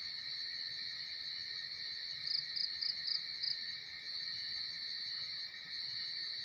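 A steady chorus of insects chirping in high, continuous bands, with five quick, evenly spaced louder chirps in the middle from one close by.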